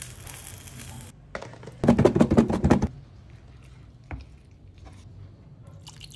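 Eggplants sizzling briefly on a grill pan, then a loud burst of rapid crackling for about a second, followed by a single light knock a little past the middle.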